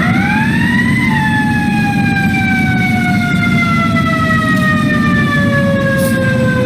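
Fire truck siren winding up to a peak about a second in, then falling slowly and evenly in pitch for several seconds, over a steady low rumble.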